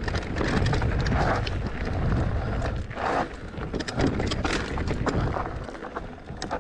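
Wind buffeting the microphone while an electric mountain bike rolls along a rough trail, with scattered clicks and rattles from the bike and its tyres on stones.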